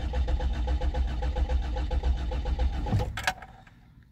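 1988 Chevrolet Nova's four-cylinder engine being cranked by its starter motor, turning over with an even pulsing rhythm but not catching. About three seconds in the cranking stops with a sharp click and the engine stays dead.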